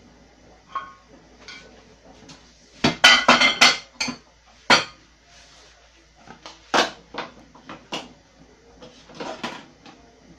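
Kitchen utensils knocking and scraping against a pan and a bowl as the rest of the marinade is emptied into the pan: a quick run of clatters about three seconds in, then single knocks spread out after.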